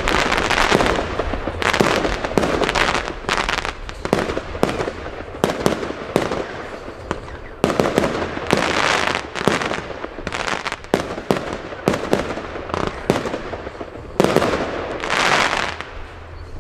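Fireworks battery firing: a quick series of launch shots and aerial star bursts, several a second, with louder volleys at intervals. The firing thins out near the end.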